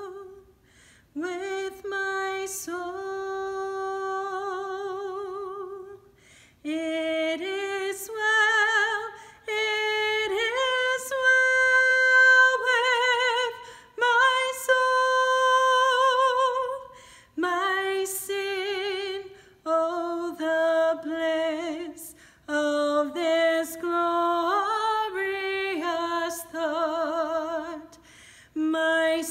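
A woman singing solo and unaccompanied, in phrases with vibrato on the held notes and short breaks for breath between them.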